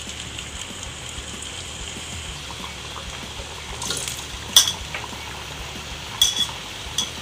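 Potato sticks deep-frying in medium-hot oil in a kadai, a steady sizzle as they begin their first fry. A spatula stirs them, with three sharp knocks on the pan, the loudest about four and a half seconds in.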